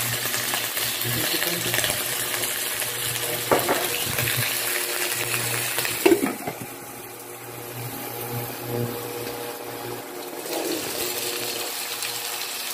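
Shrimp sizzling in hot oil in a wok. About six seconds in, a glass lid knocks onto the pan and the sizzle turns muffled and quieter; it grows louder again near the end as the lid comes off.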